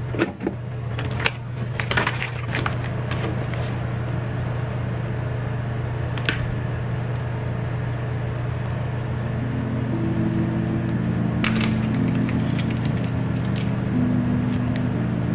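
Condiment bottles and packets knocked and set down into a plastic storage basket: a quick run of clicks and clunks in the first few seconds, and a few single knocks later, over a steady low hum. Soft low musical notes come in about ten seconds in.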